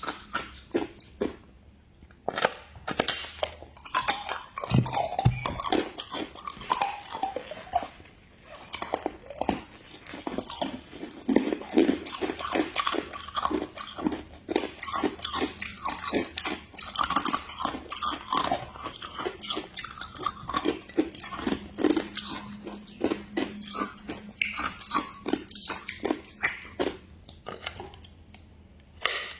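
Hard ice being bitten and chewed close to the microphone: a dense run of sharp crunches with brief pauses between mouthfuls.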